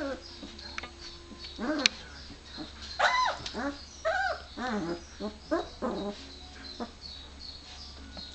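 Very young puppies crying: a run of about ten short, high cries that rise and fall in pitch, packed together from about two seconds in, then trailing off after about seven seconds.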